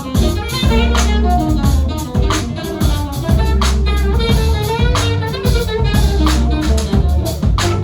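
Live jazz band playing: a drum kit hitting steady strokes under a prominent bass line, with keyboard and saxophone lines over them.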